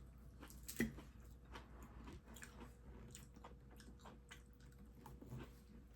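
A person chewing food, heard as faint, irregular crunchy clicks, with one louder click about a second in.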